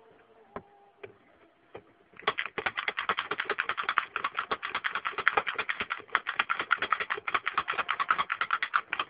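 Manual pick gun being triggered again and again against the pins of a cylinder lock, held under very light turning pressure from a circular tension wrench. A few scattered clicks come first, then from about two seconds in a rapid, even run of sharp snaps.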